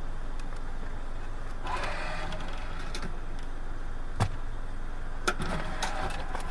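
Car engine idling, heard from inside the cabin as a steady low hum, with a sharp click about four seconds in and another about a second later.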